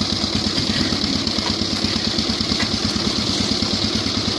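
Engine of a concrete mixer machine running steadily, with a fast, even pulse and a constant hiss above it.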